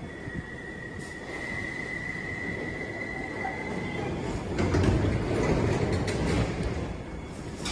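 London Underground 1972 Stock tube train at the platform: a steady high door-warning tone sounds for about four seconds. The sliding doors then close with a thud, followed by a louder rumble and hiss from the train for a couple of seconds.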